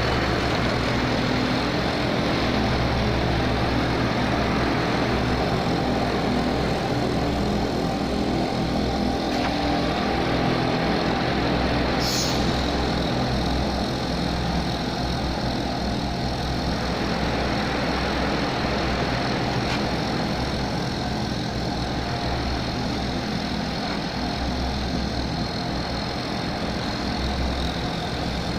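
Engine idling steadily, with a brief sharp high sound about twelve seconds in.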